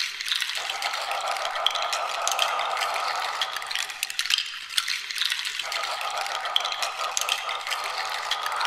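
Ambient sound-installation track: a rattle shaken in loose, scattered clicks over a steady mid-pitched rushing sound, which drops out for about a second and a half around four seconds in and then returns.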